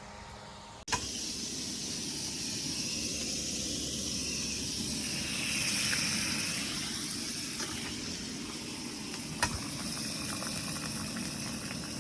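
Breakfast sizzling as it fries in a hot pan, a steady hiss, with a sharp tick about nine and a half seconds in.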